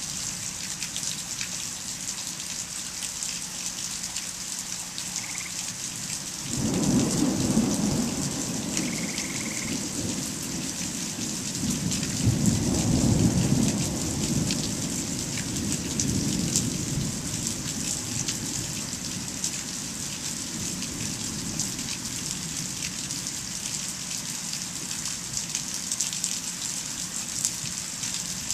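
Steady rain pattering, with a roll of thunder that breaks in suddenly about six seconds in. The thunder swells to its loudest a few seconds later and rumbles away over the following several seconds.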